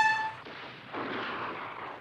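A bugle note held steady, cutting off within the first half second. It is followed about a second in by a short rush of distant gunfire.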